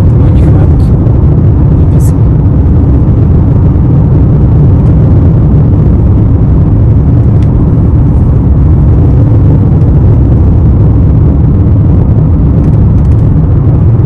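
Car driving along a road: a loud, steady low rumble of road and engine noise.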